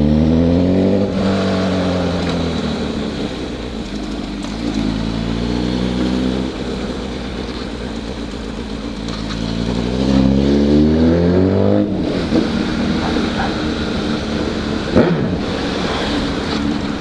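Honda CB1000 inline-four motorcycle engine accelerating through the gears: its pitch climbs at the start, again about five seconds in, and again from about nine seconds until it cuts off sharply near twelve seconds, with wind and road rush after.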